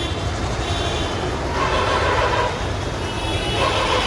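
Busy street traffic: a steady low rumble of vehicle engines and road noise.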